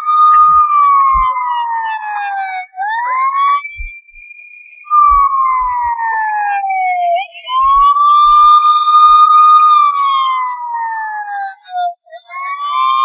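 Police siren wailing in repeated cycles about four seconds apart: each rises quickly, holds, then slides slowly down in pitch. A few faint low thumps sit under it.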